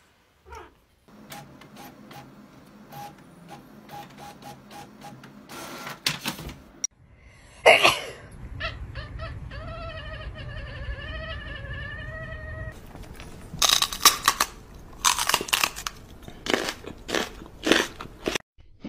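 A cat's long, wavering yowl held for about four seconds near the middle, followed by a run of loud, irregular crunching noises near the end.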